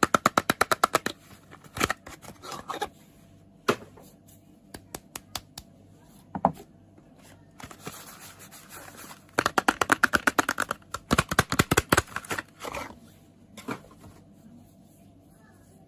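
Soap packaging being tapped: two bursts of quick, sharp taps at about ten a second, one at the start and one a little past halfway, with scattered single taps and light crinkling in between.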